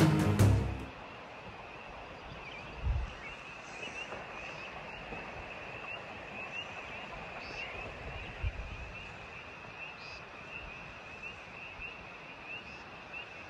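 Music cuts off about a second in, leaving an outdoor night chorus of many short, high chirping calls, with a few fainter calls every few seconds and two soft low thumps.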